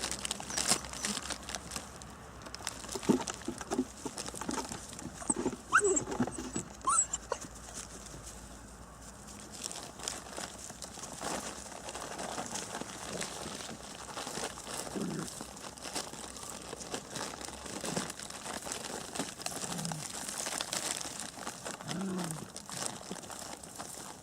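Beauceron puppies playing and chewing, with crinkling, rustling and clicking throughout and a few short puppy sounds that fall in pitch.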